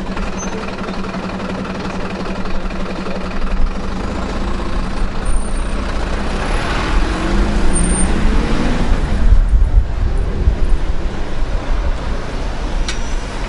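Street traffic with a heavy road vehicle's engine running. A note rises about halfway through, and a low rumble grows louder after that.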